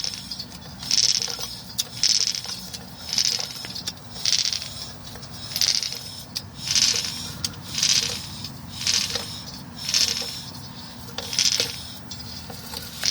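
A 2005 Mazda 3 wheel turning slowly, giving a rhythmic scrape about once a second with small clicks between, a sound like marbles. The owner suspects a bad wheel bearing, but the brake pads look to be touching the rotor.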